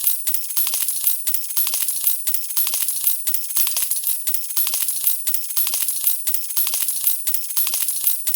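Coins pouring without a break onto a metal tray in a dense, steady stream of metallic clinks and jingling, the sound of a slot-machine jackpot payout.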